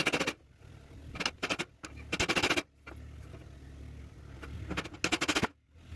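A handheld power tool used in short bursts of rapid rattling, about five bursts a fraction of a second each, while wooden chair parts are joined.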